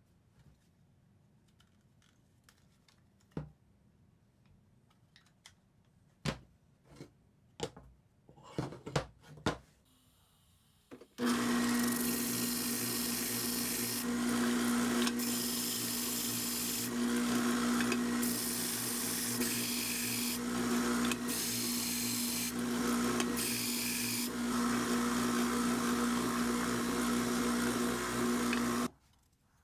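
A few knocks and clicks of workpiece handling. Then, about eleven seconds in, a woodworking power tool starts and runs steadily with a strong hum, stopping suddenly near the end.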